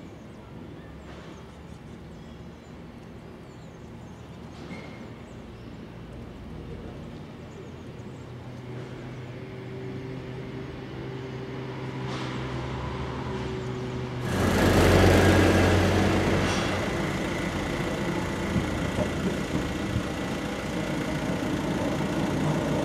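A Gotha tram drawing closer along street track, growing steadily louder. About two-thirds of the way through, a diesel box truck passes close by with a sudden loud rush that is the loudest moment. Light clicks from the tram's wheels follow near the end.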